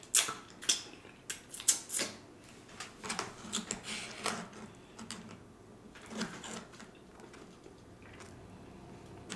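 Close-miked chewing and lip-smacking: a run of wet clicks and smacks, thinning out to quieter chewing after about six seconds.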